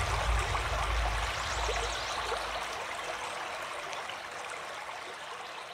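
Waterfall pouring into a rock pool: a steady rush of falling water that fades out gradually, with the tail of a low music note dying away in the first few seconds.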